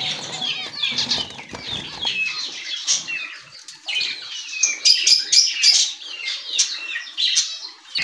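Many small cage birds chirping and squeaking in quick, overlapping high calls, with some wing flutters.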